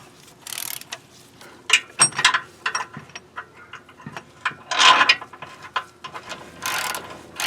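Hand tools working bolts on the power transfer unit: a ratchet wrench clicking in several short bursts, with clinks of metal tools against the case between them.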